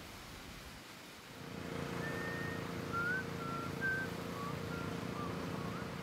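A steady engine-like hum swells in about a second in, with a series of short, high whistled chirps over it.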